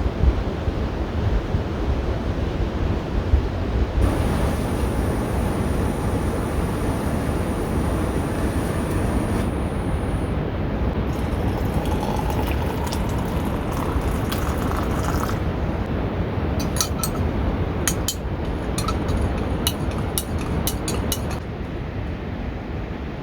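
Steady low rumbling noise throughout, with a run of sharp clicks and clinks in the last several seconds.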